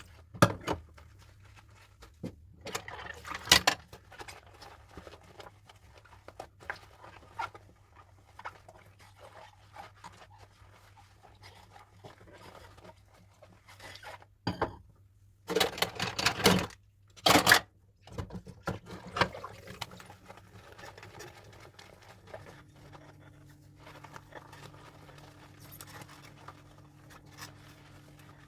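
Dishes being washed by hand: scattered clinks, knocks and scrapes, with louder bursts of scrubbing or clattering about three seconds in and again around sixteen to seventeen seconds. A faint steady low hum runs underneath and changes pitch about twenty-two seconds in.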